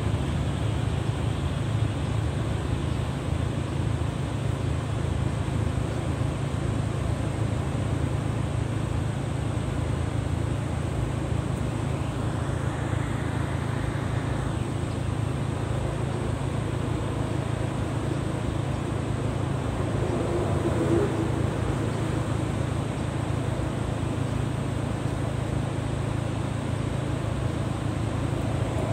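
Steady noise of ocean surf breaking on a sandy beach, with a strong low rumble underneath.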